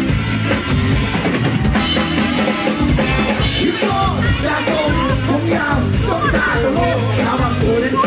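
Loud dance music with a steady drum-kit beat and heavy bass. A singing voice wavers over it from about halfway through.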